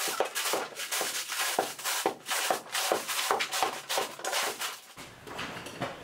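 Roll of black tar paper being unrolled and pressed against a wall: stiff paper crinkling and scraping in irregular crackles, several a second, stopping about five seconds in.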